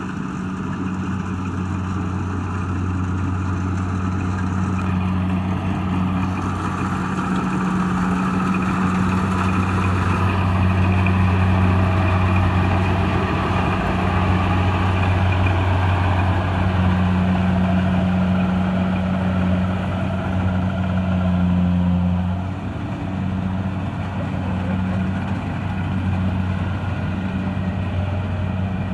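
Kubota DC-70 Plus combine harvester's diesel engine running steadily, with a slight dip in loudness about 22 seconds in.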